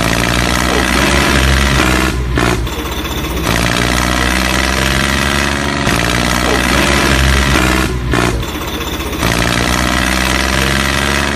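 Tractor engine running steadily, dipping briefly about two seconds in and again about eight seconds in.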